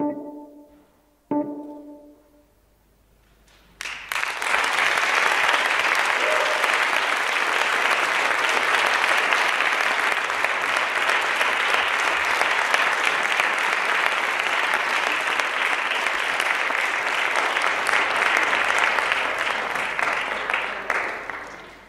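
The last two notes of the dance music, each sounding sharply and dying away. Then, about four seconds in, the audience breaks into long, steady applause that fades out near the end.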